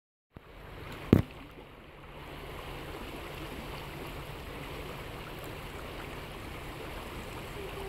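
Shallow river water flowing past a gravel bar, a steady rushing noise, with one sharp loud thump about a second in.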